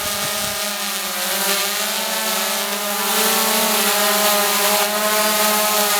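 Small multirotor drone in flight: its propellers make a steady, pitched whir of several tones that waver slightly as the motors adjust their speed to hold position.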